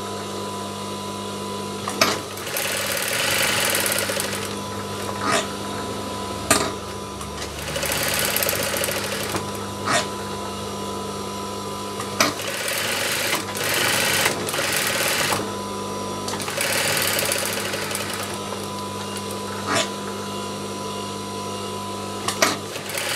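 Industrial single-needle sewing machine stitching along a fabric edge: its motor hums steadily while it sews in several short runs of a second or two, with sharp clicks now and then between runs.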